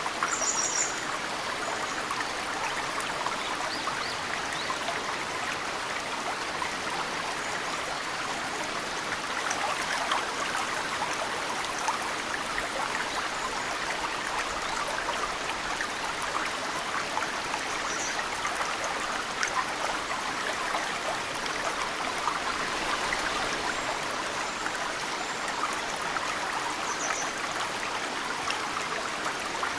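Mountain stream flowing steadily, with snowmelt drops pattering into it from the bank. A bird gives a short high chirp three times: near the start, midway and near the end.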